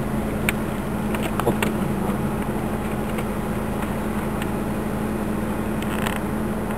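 Car engine running with a steady low hum and road noise on a gravel track, with a few sharp clicks in the first two seconds.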